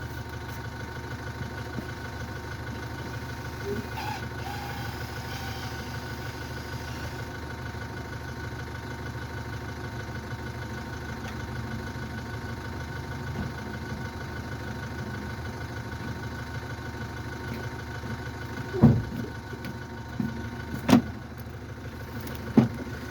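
Car engine idling steadily, with a few sharp knocks and clatters near the end.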